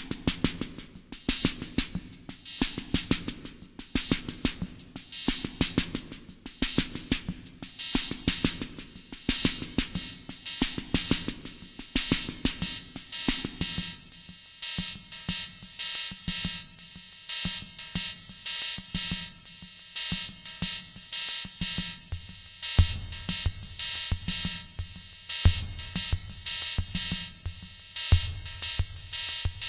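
A 1982 Sound Master Stix ST-305 analog drum machine playing a programmed rhythm pattern: a steady beat with bright, hissy high strokes over it. The mix changes about halfway through, and a deep bass drum comes in a little past two-thirds of the way.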